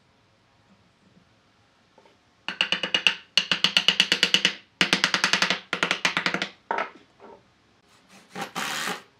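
Cordless impact driver driving screws into a wooden rail: several bursts of rapid rattling impacts with short pauses between, the longest lasting over a second.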